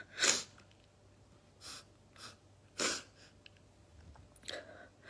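A woman crying quietly with her face in her hands: about five short, sharp sniffs and sobbing breaths, the strongest just after the start and about three seconds in.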